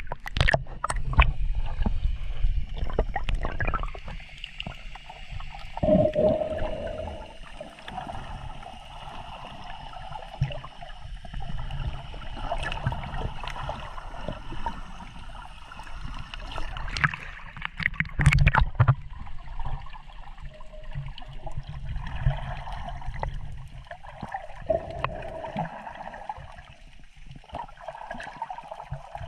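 Muffled gurgling and sloshing of seawater around a camera at or just below the surface while snorkelling, with a low rumble throughout. Sharp knocks and splashes come in clusters, during the first few seconds and again a little past the middle.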